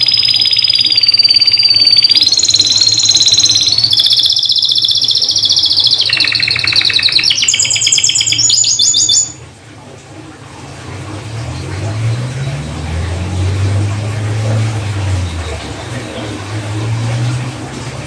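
Domestic canary singing: fast rolling trills and clear whistled notes, high-pitched, in phrases that change every second or two. The song cuts off suddenly about halfway through. After that only a low hum is heard, rising and falling.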